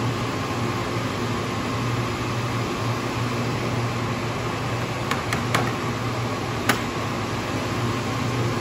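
Taylor 794 air-cooled soft serve machine running with a steady hum from its refrigeration and fan. A few light clicks come a little past halfway, then one sharper tap.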